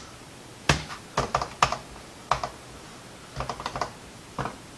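Typing on a computer keyboard: scattered key clicks, single taps and short quick runs, with pauses between.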